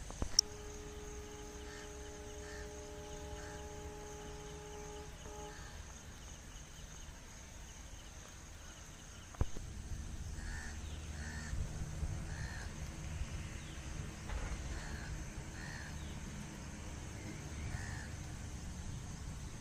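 Crows cawing repeatedly, about once a second, over a steady low outdoor rumble. Near the start a steady tone with several pitches is held for about five seconds, and a single sharp knock comes about halfway through.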